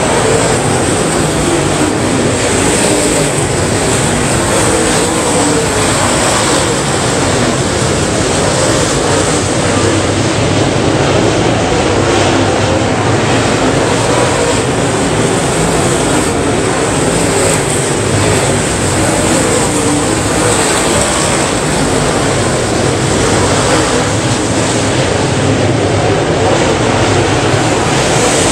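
Dirt late model race cars' V8 engines running hard around a dirt oval, with several cars passing at once. The engine noise is loud and steady and never lets up.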